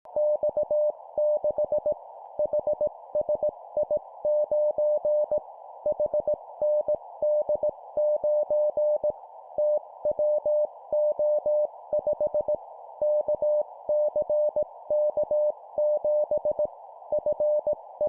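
Morse code (CW) practice: a single steady mid-pitched tone keyed in dots and dashes at 17 words per minute, sending four-character groups of three letters and a number with short gaps between groups, over a steady narrow band of hiss.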